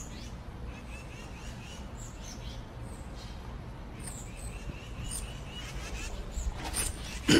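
Small birds chirping in runs of short, quickly repeated notes, twice, over a faint steady low rumble of outdoor ambience.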